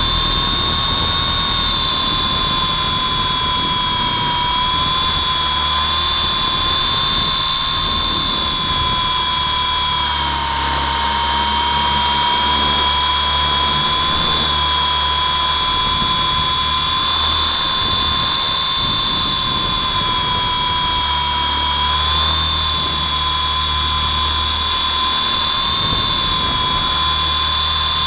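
WLToys V912 RC helicopter's electric motor and rotor running in flight, heard from a camera mounted on the helicopter: a loud, steady high whine that wavers slightly in pitch with the throttle and dips a little about ten seconds in.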